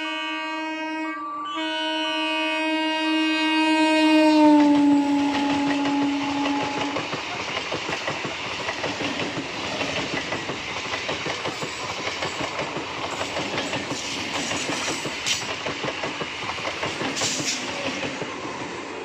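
Electric multiple unit (EMU) local train sounding its horn, broken by a short gap about a second in, the pitch dropping sharply as the train passes at speed. Then the rumble and clickety-clack of the coaches running over the rails, fading near the end.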